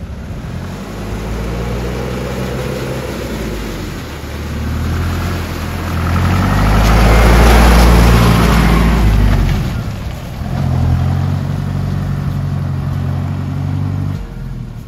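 Jeep engine pulling under load on a hill track. The revs and loudness build to a peak in the middle, drop back about ten seconds in, then run steady again.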